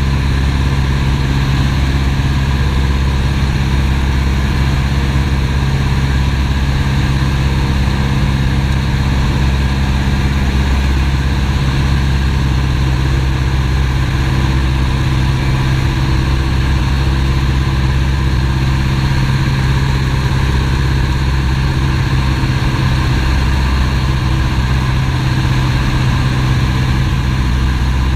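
The piston engine and propeller of a Piper PA-18 Super Cub seaplane droning steadily in level flight, heard from inside the cockpit.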